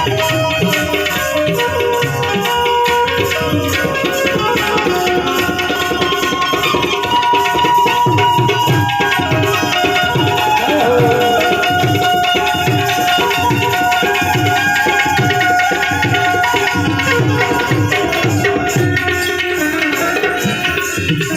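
Instrumental interlude of a Gujarati bhajan: a harmonium plays a melody in held notes over a steady hand-drum beat.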